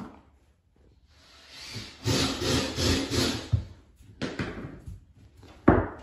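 Vinyl flooring plank scraping over a plywood subfloor in several quick back-and-forth strokes, then two sharp knocks, the second one the loudest.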